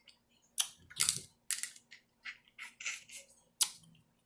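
Snow crab shells being cracked open: a quick, irregular run of sharp cracks and crunching snaps, the loudest about a second in.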